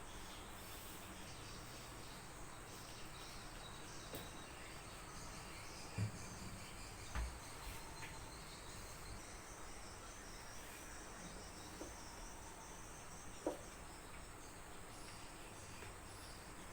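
Faint, steady chirring of insects such as crickets, with a few soft knocks: two low thuds about 6 and 7 seconds in, and a short click near the end.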